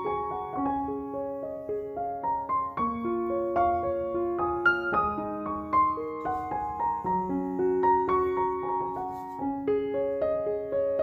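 Background piano music: a gentle, steady run of single notes and chords.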